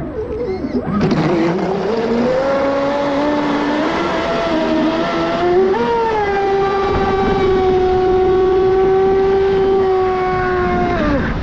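Pro Boat Sonicwake 36 RC boat's brushless electric motor, on 6S power, whining as the boat runs. The pitch rises over the first few seconds, holds as a steady high whine, then drops away near the end.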